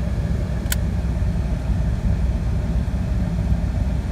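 Truck engine running with a steady low rumble, and a single short sharp click less than a second in.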